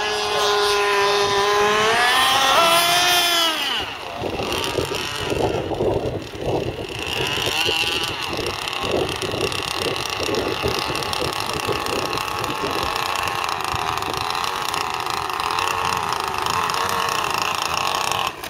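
Modified Zenoah two-stroke petrol engine of an Insane Cat Gen 2 RC catamaran running at high revs, its pitch holding, then rising and falling before dropping off about four seconds in. After that it runs at low throttle, lower and uneven, as the boat comes in slowly.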